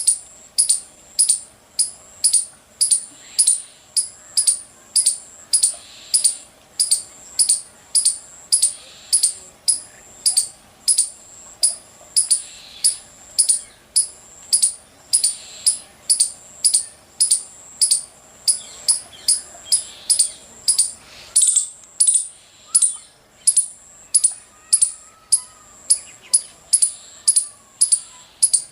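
Squirrel chirping: a sharp, high chirp repeated evenly, nearly twice a second.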